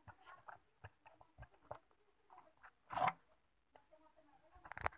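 Handling noise as the homemade selfie-stick tripod is moved and set on a table: small scattered clicks, taps and rustles, with one louder knock about three seconds in and a quick cluster of clicks and rustling near the end.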